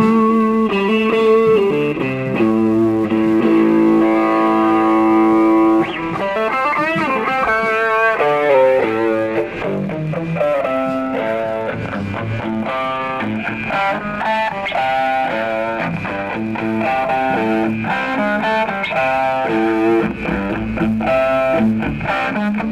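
Distorted electric guitar played through an amplifier and effects. It holds a long note for a few seconds, bends up near six seconds in, then plays quick runs of single notes.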